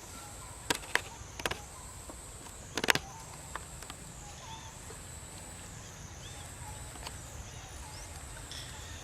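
Outdoor ambience: a high insect drone that swells and fades about once a second, with a few sharp clicks or snaps in the first three seconds, the loudest near three seconds in.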